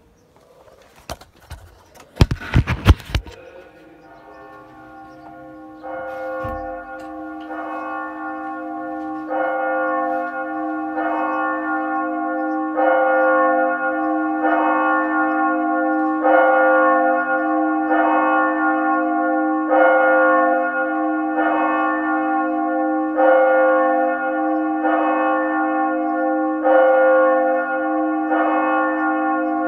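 Church bell tolling steadily, one stroke about every second and three quarters, growing louder over the first few strokes, with its hum ringing on between strokes. A short, loud clatter of knocks comes about two to three seconds in, just before the ringing begins.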